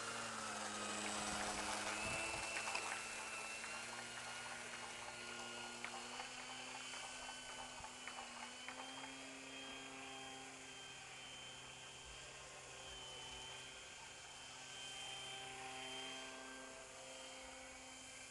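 Motor and propeller of a foam RC model plane giving a steady whine of several tones, whose pitch shifts a little with throttle. It is loudest in the first few seconds as the plane passes close overhead, then fades as it flies away.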